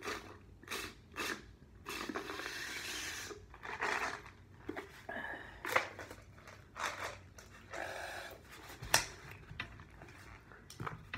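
A person drinking through a straw from a foam cup: a run of short gulps and mouth sounds, with breathy stretches between sips.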